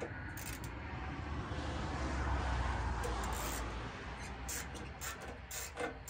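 Scattered metallic clicks of a ratchet and 11 mm deep socket on a universal joint working a bolt, over a rushing noise with a low rumble that swells and fades in the middle.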